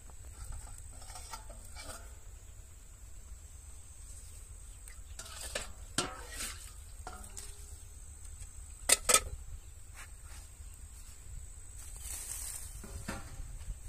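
Scattered clinks and knocks of pots and utensils being handled. The loudest are two sharp knocks close together about nine seconds in, and a softer scraping rustle comes near the end.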